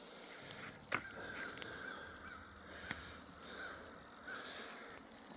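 Crows cawing repeatedly from a distance, faint and harsh, with a single sharp click about a second in.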